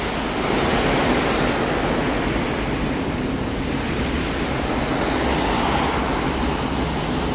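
Steady rushing noise of heavy rain and water, with cars hissing past on the wet road.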